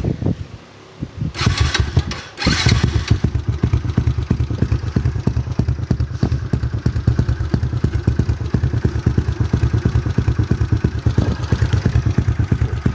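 Motorcycle with a Mutakin aftermarket exhaust, its silencer insert removed and no fibre packing inside, started up. Two short bursts of noise come about a second and a half in and again near two and a half seconds. The engine then catches and settles into a steady idle of rapid, even exhaust pulses through the open pipe.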